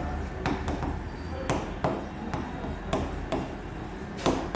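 Stylus tapping and sliding across an interactive display's screen during handwriting: irregular light clicks, about two a second, over a steady low hum.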